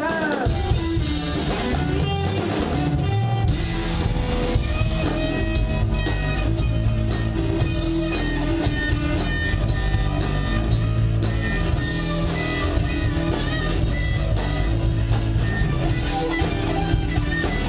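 Live rock band playing an instrumental passage on electric guitars and drum kit, loud and dense, with no singing. The full band comes in just after the start.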